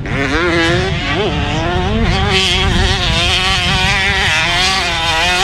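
A Pro Circuit-built 2020 Yamaha YZ125 two-stroke engine is revving hard as the motocross bike is ridden. Its pitch climbs sharply at first, dips and climbs again about a second in, then stays high and wavers with the throttle.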